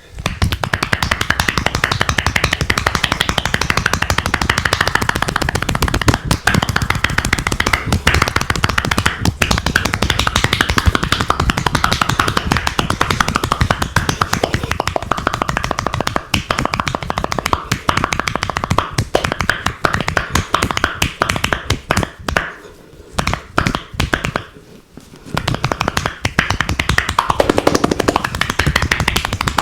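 Rapid percussive massage strokes, hands slapping and chopping on the body in a fast, continuous patter, with two short pauses a little past two-thirds of the way through.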